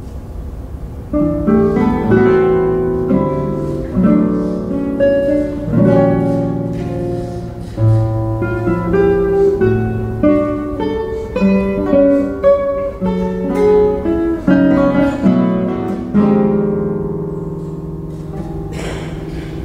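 Two classical guitars, by luthiers Antônio de Pádua and Paulo Marcos, playing a contemporary classical duo: plucked notes and full chords enter about a second in and move through quick figures. Near the end a chord is left ringing and fades away.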